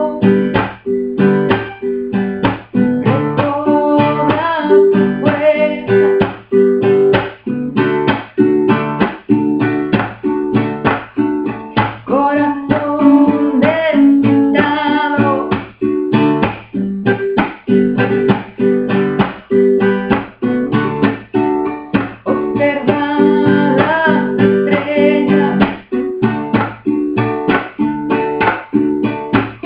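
A woman singing to her own strummed acoustic guitar, with a steady rhythmic strum throughout and her voice rising over it at several points.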